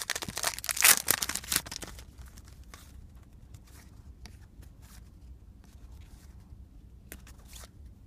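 Foil wrapper of a 2013 Topps football card pack being torn open and crinkled, loudest in the first two seconds, then a few faint rustles and clicks as the cards are handled.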